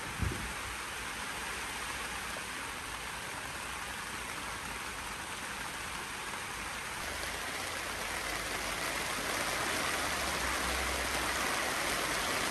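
Steady rain falling on a tent's fabric, heard from inside the tent and growing a little louder toward the end. A brief low thump comes just after the start.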